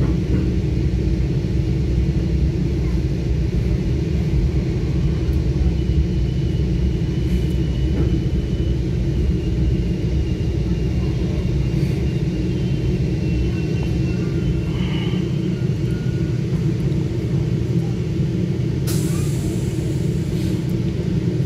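Steady low rumble inside a Metra commuter train coach as it slows to a stop at a station. A faint high whine runs through the middle, and about 19 seconds in a sharp hiss of air comes as the brakes set.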